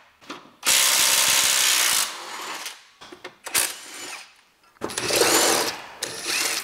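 Handheld cordless power tool driving bolts, run in two bursts: one about a second and a half long starting half a second in, then a shorter one near the end, with a sharp click between them.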